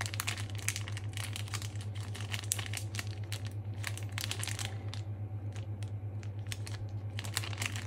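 Small plastic seasoning sachet crinkling as a fork scrapes sticky seasoning out of it: a run of quick crackles, thinner through the middle. A steady low hum runs underneath.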